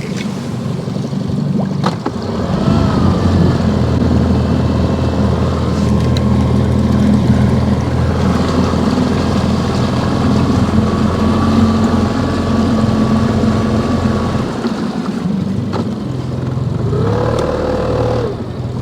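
Boat motor running steadily, picking up about two and a half seconds in and easing back off near the end.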